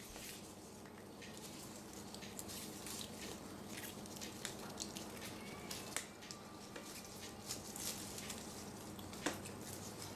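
Light crackling rustle and irregular small clicks of hands tying a ribbon into a bow on doubled craft wire, over a faint steady hum.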